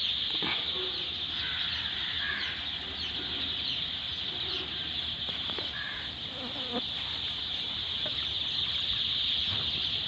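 A large flock of four-day-old chicks peeping all together: a dense, steady chorus of high cheeps with no pauses.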